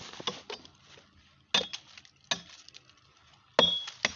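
Hard objects clinking together, four sharp clinks a second or so apart, some with a brief high ring.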